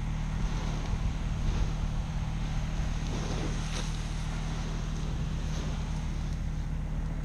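Fire truck's pump engine running steadily under the hiss of a hose spraying water onto burning ground litter.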